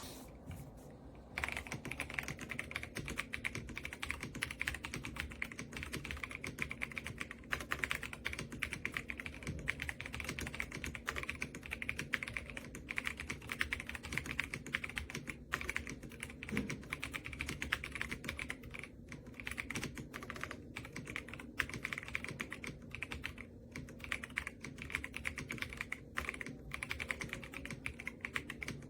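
Continuous fast typing on an RK Royal Kludge R75, a gasket-mounted 75% mechanical keyboard: a dense, unbroken stream of keystrokes that starts about a second in after a brief pause.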